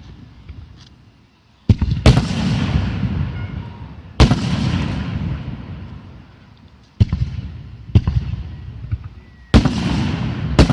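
Aerial fireworks bursting: about seven sharp bangs, one to three seconds apart, each trailed by a long crackling rumble that fades away.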